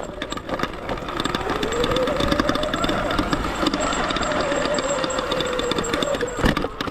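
Electric dirt bike's motor whining under power, its pitch rising as it speeds up, then holding steady before easing off near the end, with the chain and frame clattering over rough dirt.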